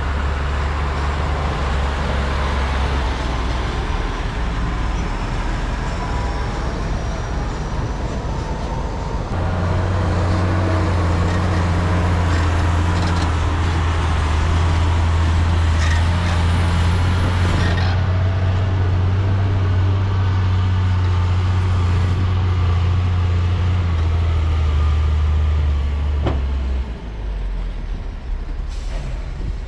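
Diesel engine of heavy earthmoving equipment running with a steady low drone. About a third of the way in it steps up in level and pitch and holds there until near the end, when it drops back.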